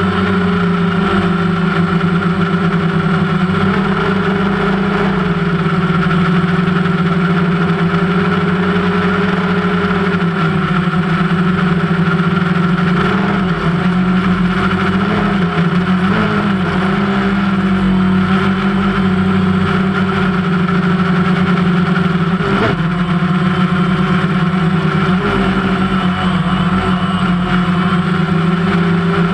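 DMZ AIMQ II drone's electric motors and propellers in flight, a steady pitched hum. The pitch wavers briefly around the middle as the drone changes speed, and there is a single click about three-quarters of the way through.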